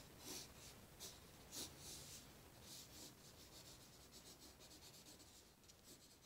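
Faint scratching of a dark green colored pencil on paper while outlining leaves: a few separate strokes, then quicker, fainter ones near the end.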